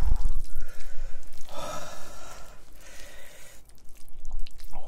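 Chopsticks working saucy spaghetti in a pan, with wet squishing sounds, a low thump at the start and a loud breathy rush of air lasting about two seconds in the middle, like a sharp breath or blowing on the hot noodles.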